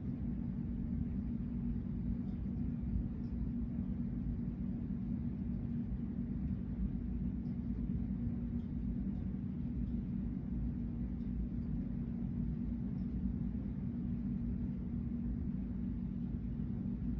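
A steady low mechanical hum with a rumble beneath it, unchanging throughout, with a few faint ticks.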